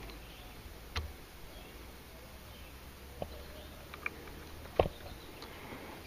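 Four small clicks and taps of metal parts being handled as a hydraulic line and its retaining clip are worked back into the front hydraulic latch cylinder of a Mercedes R129 convertible, the sharpest a little under five seconds in.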